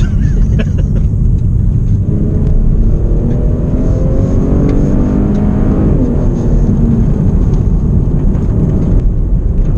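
Holden Commodore accelerating. The engine note climbs steadily for a few seconds, then drops at a gear change about six seconds in, over a constant heavy road and wind rumble.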